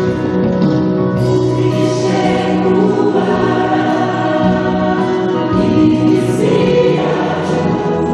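A church choir of women and men singing a gospel song into microphones, the voices sustained and continuous.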